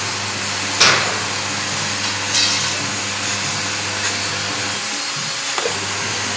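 Coconut-milk pressing machine running with a steady motor hum and grinding, rubbing noise. A sharp scrape comes about a second in and a smaller one near two and a half seconds. The low hum drops out briefly around five seconds, then returns.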